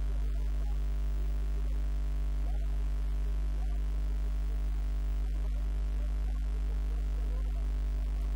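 A steady low electrical hum with its overtones, unchanging in level, with faint indistinct wavering sounds above it.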